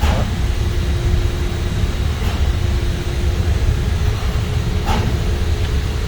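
Steady low rumble of running machinery with a faint steady hum over it, broken by a few light knocks, one right at the start, one about two seconds in and one about five seconds in.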